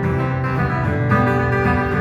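Instrumental break in a live acoustic folk song: guitar playing over sustained low notes, with no singing.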